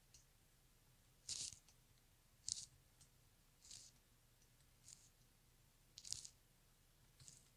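Faint small scrapes and clicks of needle-nose pliers working a tiny E-clip off the shaft of a micro brushless drone motor, about six soft ticks roughly a second apart.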